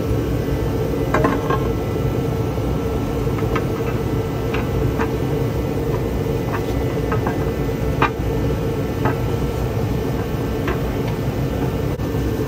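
Oil pan being wiggled up into place under the engine: light, irregular metal clicks and knocks, about a dozen, over a steady background hum.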